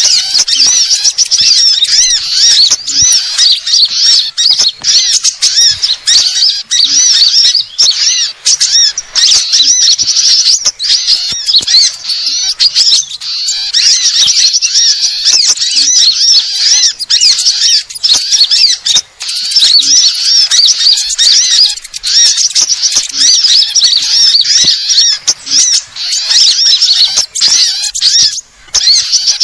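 A dense, non-stop chorus of small songbirds' rapid high-pitched chirps and twitters: a bird-trapping lure recording (suara pikat) mixing several small bird species' calls to draw small birds in.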